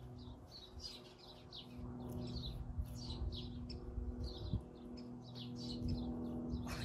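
Small birds chirping repeatedly in quick short calls, over a steady low hum.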